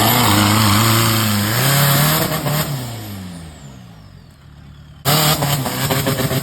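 Off-road 4x4's engine revving hard, then falling in pitch and fading away over a couple of seconds; about five seconds in, loud engine revving starts again suddenly.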